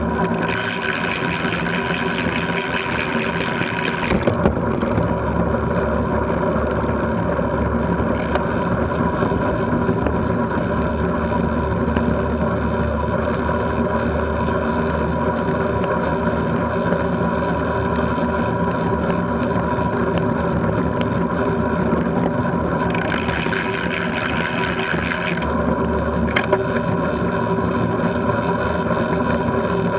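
Wind and road noise on a bicycle-mounted action camera riding at about 20 mph: a steady rushing hum with a few fixed tones in it, turning hissier twice for a few seconds, near the start and about three-quarters of the way through.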